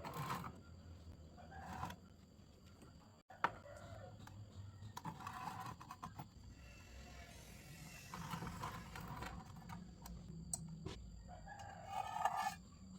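Faint chickens: a rooster crowing and hens clucking in a few separate calls of about a second each, with occasional sharp clicks.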